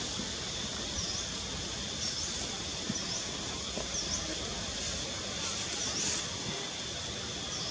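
Outdoor ambience: a steady high insect drone, with a bird giving a short, high chirp about once a second.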